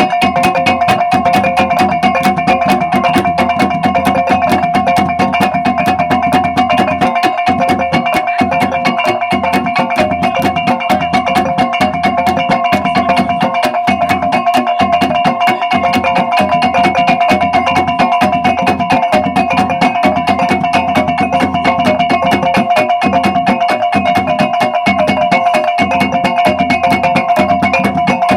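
Traditional Bajawa (Ngada) gong and gendang drum ensemble playing: gongs ringing steady tones over a fast, unbroken run of drum and gong strokes.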